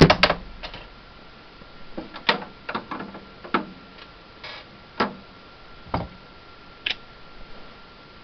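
Scattered clicks and light knocks of hand tools being picked up and handled, spaced irregularly about a second apart, over a faint steady high whine.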